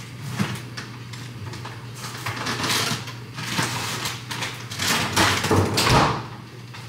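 Rummaging through a refrigerator's bottom freezer drawer, packages rustling and clattering in irregular bursts, then the drawer pushed shut with a thump about six seconds in.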